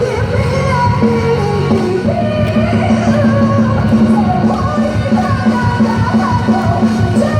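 Live Korean pop-rock song: a female singer singing over a band backing track with a steady, driving bass beat.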